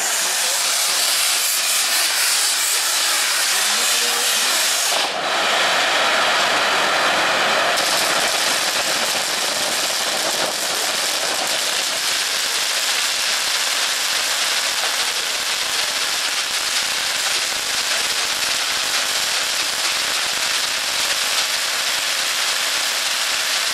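Pyrotechnic fountains and spinning fire wheels hissing steadily, a continuous loud rush of spraying sparks that briefly dips and then grows fuller about five seconds in.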